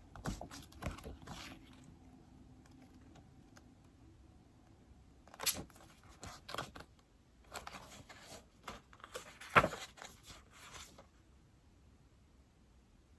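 Taps and short scratchy strokes of note-taking on an iPad, coming in three bursts separated by quiet pauses, with one sharper tap about nine and a half seconds in.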